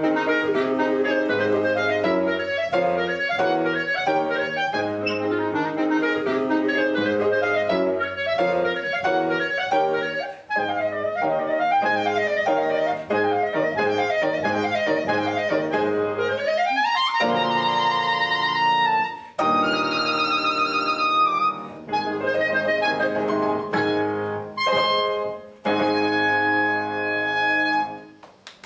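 Clarinet and grand piano playing a piece together: quick runs of notes in the clarinet over piano chords, a long rising run about two-thirds of the way through, then longer held notes. The music stops right at the end.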